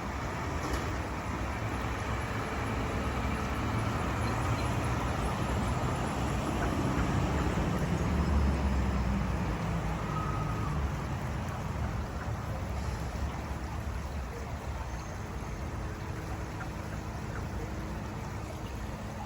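Flowing river water: a steady rushing noise with a low rumble. The rumble swells for a few seconds a little before the middle, then settles back.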